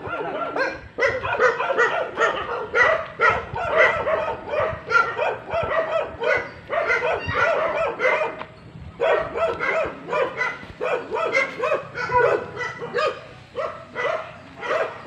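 Dogs barking and yipping rapidly and without let-up, with a brief pause just past the middle.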